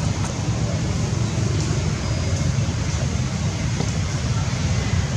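Steady outdoor background noise: a continuous low rumble under an even hiss, with a few faint ticks.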